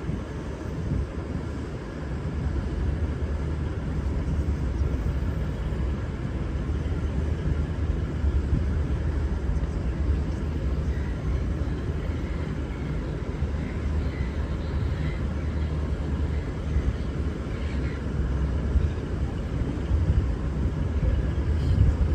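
Steady low rumble of a V/Line VLocity diesel train's engines as it runs at the platform or moves off, growing louder about two seconds in.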